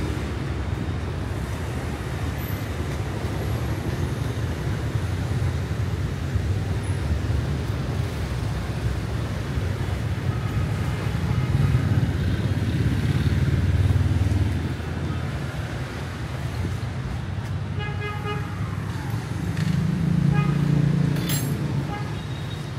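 Street traffic: a steady engine rumble from passing vehicles that swells twice as vehicles go by close, with a short horn toot about three-quarters of the way through.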